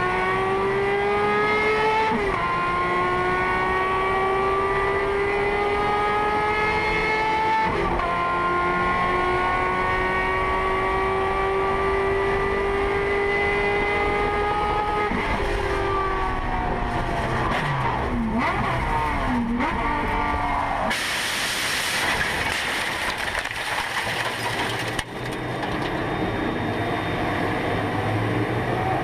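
Racing car engine at high revs accelerating, its note climbing and dropping twice as it shifts up, then falling and dipping unevenly as it slows. About two-thirds of the way in, a loud rush of noise swamps the engine and runs on roughly to the end.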